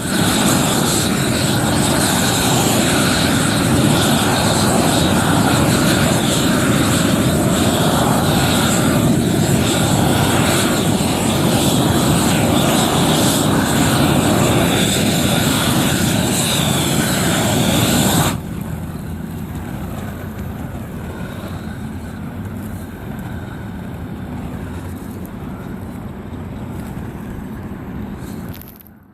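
Propane roofing torch burning with a loud, steady rushing noise that drops abruptly to a quieter hiss about 18 seconds in.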